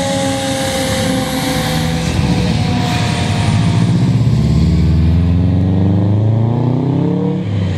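A fire truck's siren gives a steady tone that slides slowly lower and fades over the first few seconds. A Subaru car then passes close by, its engine revving higher as it accelerates; this is the loudest sound and almost drowns out the siren.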